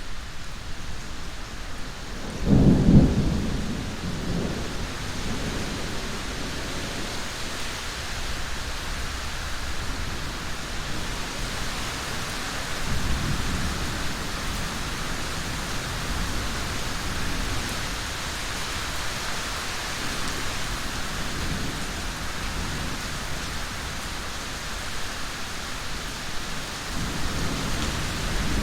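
Steady rain falling, with thunder: a loud low rumble about two and a half seconds in, and fainter rumbles around the middle and near the end.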